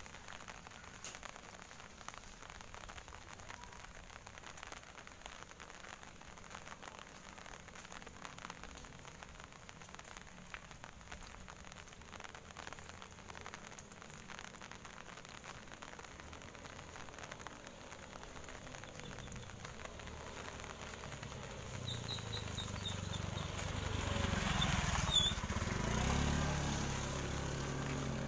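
Light rain pattering on a wet road, a faint crackling hiss with fine ticks. In the last several seconds an engine draws near and grows louder, loudest about three seconds before the end.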